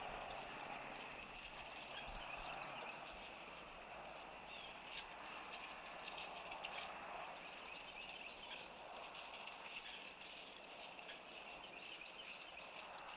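Faint outdoor wetland ambience: distant birds calling in short, scattered notes over a steady background hiss.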